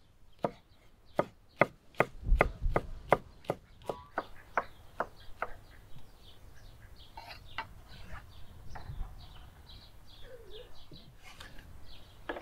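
Knife slicing green chili peppers on a wooden cutting board: a run of sharp, evenly spaced knocks, about two or three a second, for the first five seconds or so, then a few fainter, scattered cuts.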